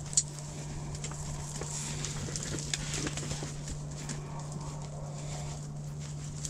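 Soft, irregular clicks and taps from an ice fishing rod and reel being handled while jigging, over a steady low hum.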